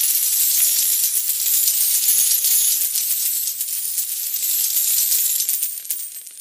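Shower of metal coins falling and clinking: a dense, continuous jingle of many small high clicks that fades out near the end.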